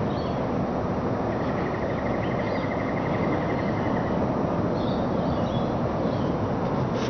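Steady outdoor rushing noise, with a rapid high trill from about one to four seconds in and a few faint bird chirps over it.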